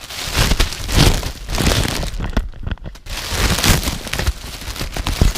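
Irregular rustling and crinkling of material being handled, with a short pause a little past the middle.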